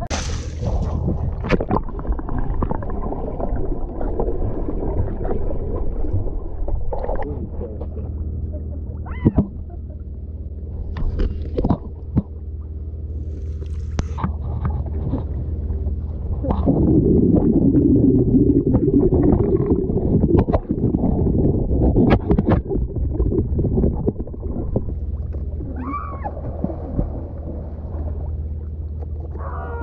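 Pool water sloshing and splashing close to a camera held at the waterline, with many sudden sharp splashes and a low steady hum underneath. About halfway through the water noise swells into a louder rush for a few seconds.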